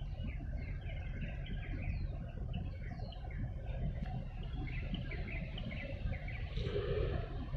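Small birds chirping in quick, repeated short calls over a steady low outdoor rumble, with a brief louder sound near the end.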